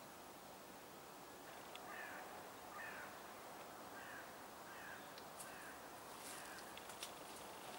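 A bird calling faintly, a string of short falling calls repeated every half second to a second, with a few sharp clicks near the end.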